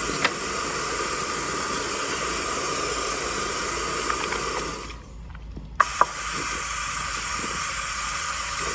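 Restroom hand dryer blowing with a steady rush of air. It cuts off about five seconds in, and after a couple of clicks it starts blowing again.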